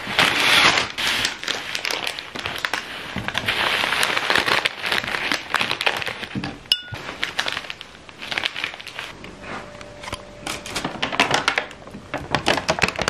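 Paper and plastic wrapping rustling and crinkling as a bouquet and wrapped items are handled and packed into a paper bag, with many small sharp crackles and knocks.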